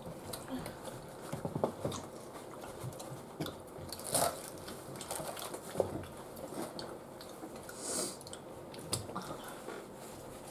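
Close-up eating sounds of oven-baked nachos: tortilla chips being bitten and chewed with irregular crunches. A few louder crunches come about four, six and eight seconds in.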